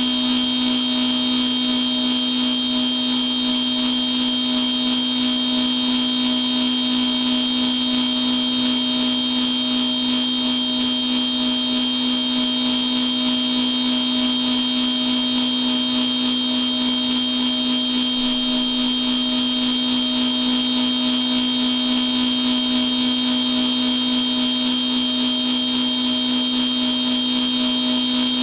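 CNC machining centre running its program with no cutting and no coolant: a steady machine whine, a strong low hum with a high tone above it, unchanging in pitch and level.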